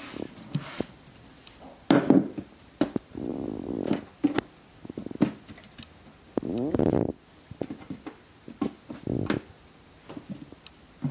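Handling noises of fish being cleaned on a wooden cutting board: a cloth wiping the board and a towel rubbing and squeezing a gutted horse mackerel dry, with scattered knocks of the fish and knife against the board. The loudest knocks come about two seconds in.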